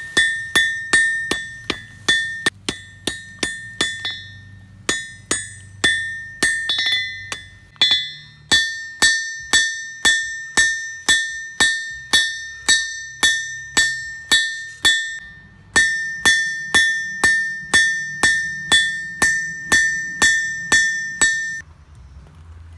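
Hand hammer striking hot steel on a Round Horn Legend anvil, about two blows a second with a few short pauses, each blow ringing with a clear high tone. The hammering stops shortly before the end.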